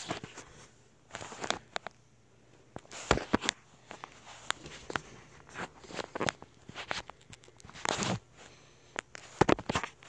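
Footsteps of a person walking through a house, with irregular knocks and scuffs from the phone being carried in hand. The steps drop off to a quieter stretch about a second in, then resume.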